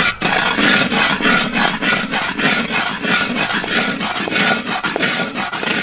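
Stainless steel spatula scraping and stirring a thick sauce around a wok in repeated rasping strokes, the sauce bubbling in hot oil.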